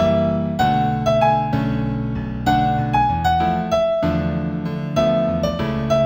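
Solo piano music, a slow new-age piece in A major: a melody of single struck notes over held lower chords, each note ringing and fading, a new note about every half second.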